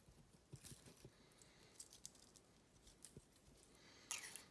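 Near silence with scattered faint light clicks from a steel feeler gauge set being handled while its blades are tried between a cam lobe and a lifter to measure valve lash, and a slightly louder cluster of clicks near the end.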